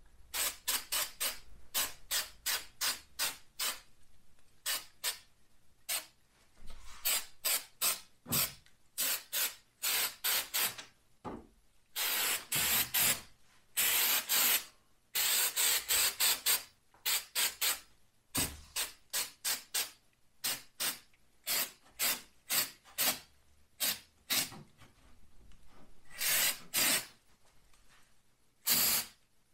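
Aerosol can of speckle-finish spray paint: the can is shaken in runs, its mixing ball rattling about two to three times a second, between a few seconds-long hisses of spray near the middle and one more hiss near the end.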